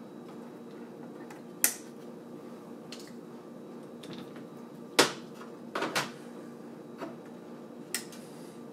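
A handful of sharp clicks and taps from hands handling cables and plastic parts inside a PC case, the loudest about halfway through, over a steady low hum.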